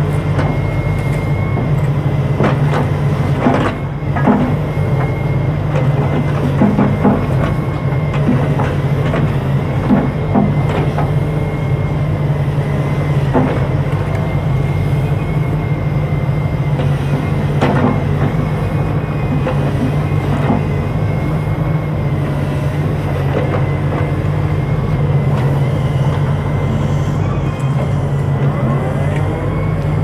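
Volvo wheeled excavator's diesel engine running steadily under load as it digs, with a steady high whine over the engine hum and occasional knocks and clanks.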